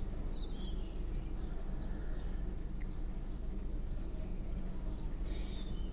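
Faint bird calls, high chirps falling in pitch, heard near the start and again about five seconds in, over a steady low background hum.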